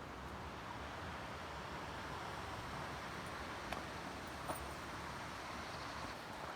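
Steady rushing of flowing mountain water, with two faint clicks midway.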